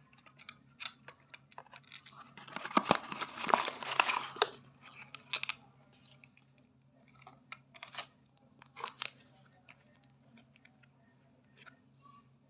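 Paper and cardboard packaging being handled: a stretch of crinkling and rustling for about two seconds, then scattered light rustles and taps, over a faint steady hum.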